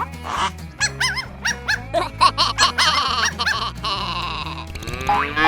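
Playful background music with a steady repeating bass line and quick chirpy arched notes. Near the end, a cartoon cow-moo sound effect begins with a long rising call.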